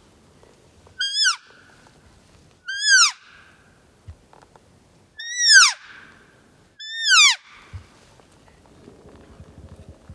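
Four short, high elk cow-call mews about a second and a half apart, each rising briefly and then falling steeply in pitch. A faint low rustle comes in near the end.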